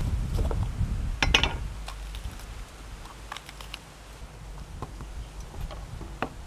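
Cleaver cutting through a red bell pepper and knocking on a wooden chopping board: a cluster of sharp knocks about a second in, then scattered lighter ticks and crunches as the pepper is pulled apart.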